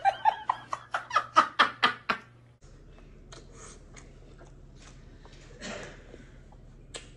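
A woman laughing in a rhythmic run of ha-ha bursts, about four a second, that stops after about two seconds. Then soft mouth clicks and smacks of someone eating a honey hot chicken wing close to the microphone.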